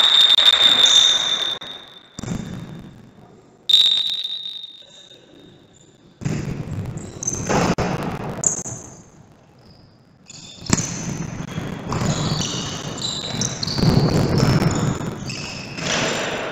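Indoor futsal game: a referee's whistle blown twice, near the start and about four seconds in, then sneakers squeaking on the hard court floor and the ball thudding as play goes on.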